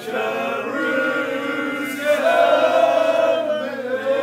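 A group of men singing an old pub song together in unison, on long held notes.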